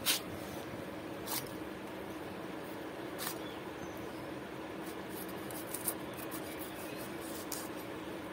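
Ridge gourd skin being scraped and shaved off against the blade of a boti, a soft scraping with a few sharp clicks, over a steady low hum.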